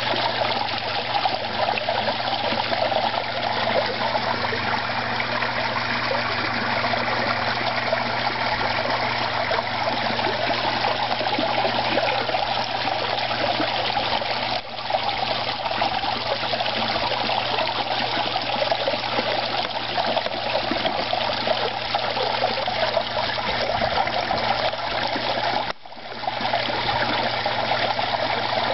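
Water running and trickling steadily into a garden koi pond, with a faint low hum underneath. The sound dips briefly once midway and once near the end.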